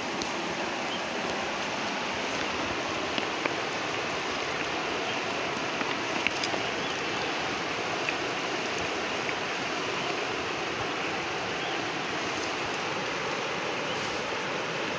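River water rushing steadily, with a few light clicks over it now and then.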